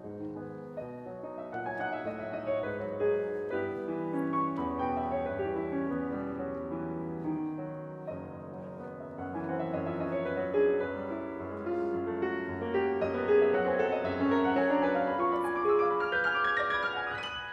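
Piano music: a dense flow of many overlapping notes that swells and ebbs in loudness.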